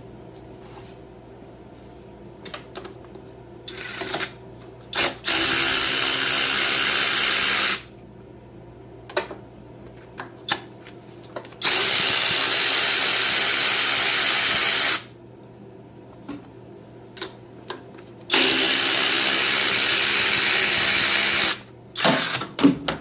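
Power tool with a socket backing out the bolts of a Farmall 450 tractor's shifter housing. It runs steadily in three spells of about three seconds each, with small clicks of tool and metal between them and a brief clatter near the end.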